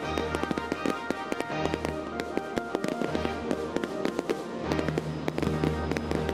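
Music with a bass line that changes about once a second, over dense crackling and popping from aerial fireworks bursts.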